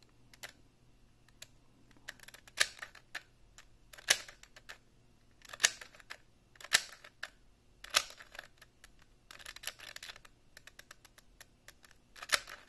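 Alpha V 3x3 speedcube's plastic layers turned in short separate moves, about ten quick clacking bursts at irregular gaps of a second or so. The cube is scratchy, on tight tensions, being turned to test how far it corner cuts.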